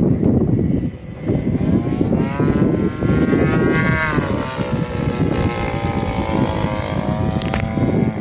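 Radio-controlled model plane's 50cc gas engine and propeller running in flight. The engine note climbs to a peak about four seconds in, then drops and levels off, over a heavy low rumble. There is one sharp click near the end.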